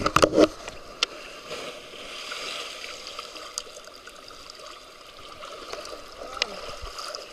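Seawater washing up the shore and draining back, a steady rushing hiss that swells about two seconds in. A few sharp knocks at the very start.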